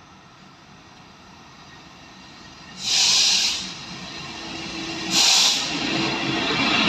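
Freightliner Class 66 diesel locomotive approaching with a freight train, its engine and wheel noise growing steadily louder. Two short, loud bursts of hiss cut through, about three seconds in and again about five seconds in.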